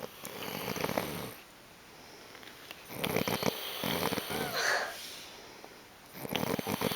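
A sleeping person snoring: three snores a few seconds apart, each lasting one to two seconds.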